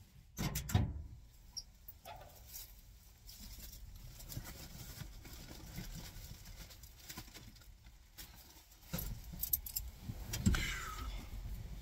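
Scattered clicks, knocks and rustling of someone moving about in an old pickup truck's cab, with a cluster of sharp clicks in the first second and more knocks about nine seconds in.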